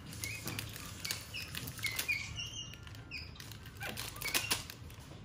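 Crinkling and crackling of plastic gift wrapping as a capuchin monkey tears at a wrapped toy, with a few short high chirps mixed in.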